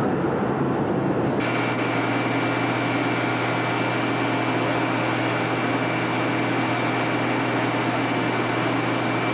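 Steady cabin roar of a Boeing 737-300 in cruise. About a second and a half in it cuts to a steady high jet whine over a low hum from jets on an airport apron.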